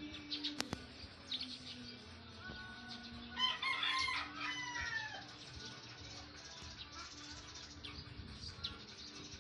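A rooster crows once, about three and a half seconds in: a call of under two seconds that falls in pitch at the end. A few light clicks come from small parts being handled before it.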